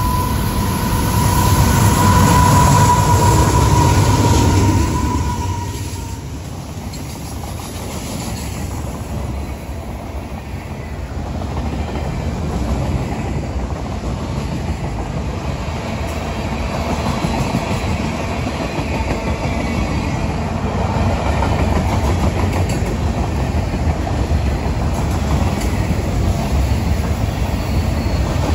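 CPKC freight train passing close by. Its lead diesel locomotives are loudest in the first five seconds, with a steady high whine over the engine rumble. Then the freight cars roll past with a steady rumble and wheel clatter on the rails.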